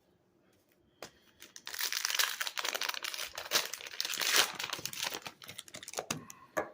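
Plastic wrapper of a hockey card pack crinkling as it is torn open and handled, starting about two seconds in after a single click.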